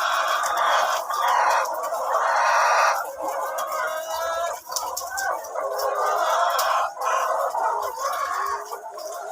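A flock of chickens clucking and calling, many birds at once, without a break.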